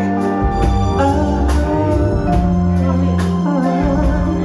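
Live band playing an instrumental soul intro, with sustained organ chords over bass and a steady drum beat.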